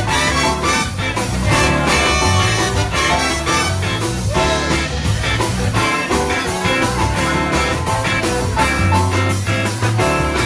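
Live band playing with a horn section of trumpet and saxophone, electric guitar and drum kit, the drums keeping a steady beat.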